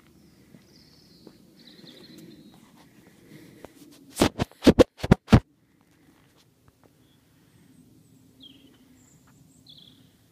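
A quick run of about six sharp, loud knocks about four seconds in, over a low steady hum. Faint, short high chirping calls come a few times near the start and again near the end.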